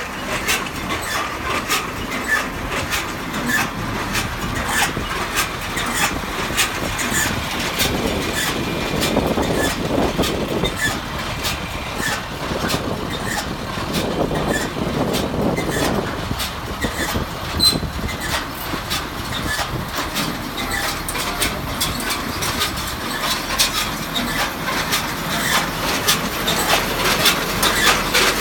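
John Deere 535 round baler running on the tractor's PTO, with a steady mechanical rumble and a fast, regular clatter of clicks.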